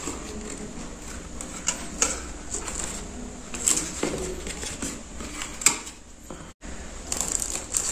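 Cardboard packaging and a paper booklet being handled in an electronics box: light rustling with scattered sharp clicks and taps as a cardboard insert is lifted out.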